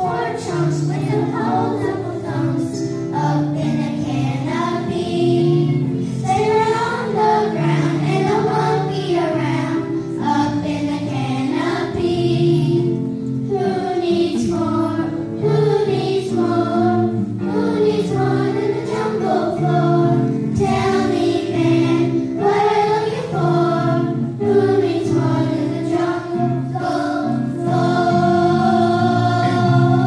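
Children's choir singing a song with accompaniment, the massed young voices over steady low chords, holding a long note near the end.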